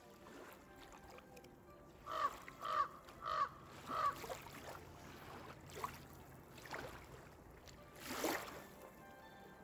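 Crow cawing: four harsh calls in quick succession about two seconds in, then a louder harsh call near the end, over a low steady hum.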